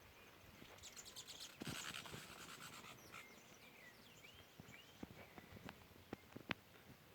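Faint bird chirps: a few short curved whistled notes, over a quiet background. About a second in, a hissing rustle with fast ticks lasts a couple of seconds, and scattered sharp clicks follow near the end.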